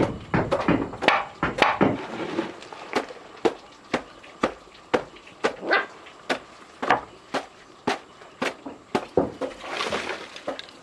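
Dog barking repeatedly: a quick run of barks, then single barks about twice a second.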